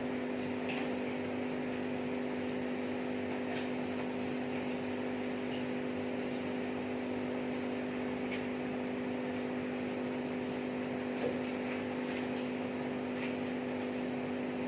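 Steady machine hum with several fixed tones, with a few faint clicks scattered through it.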